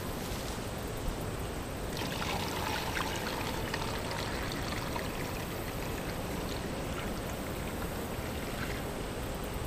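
Liquid bee feed pouring from a plastic jug into a hive feeder: a steady trickle that turns into a fuller, splashier pour about two seconds in, then eases off.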